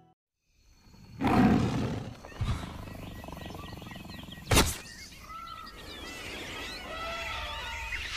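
Outdoor field audio: a loud rumble of wind or handling on the microphone, a sharp knock, then high warbling, chirping animal calls.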